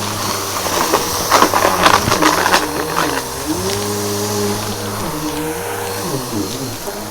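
A Bissell PowerForce Helix vacuum cleaner running, its motor pitch dipping and recovering several times as the airflow changes. Between about one and three seconds in, dry debris crunches and rattles as it is sucked up through the brushroll, with a few fainter crackles later.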